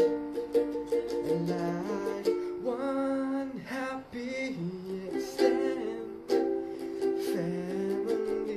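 Ukulele strummed in chords, with a voice singing a wordless melody for a few seconds in the middle.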